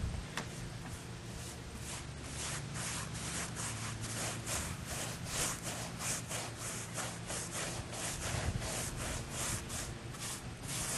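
Paintbrush scrubbing roof coating onto the edges of asphalt shingles: quick back-and-forth bristle strokes, about three a second, starting about two seconds in.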